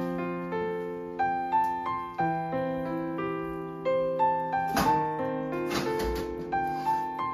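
Background piano music, a gentle melody of single notes over held bass notes. About five seconds in there is a brief noise, and a second one about a second later.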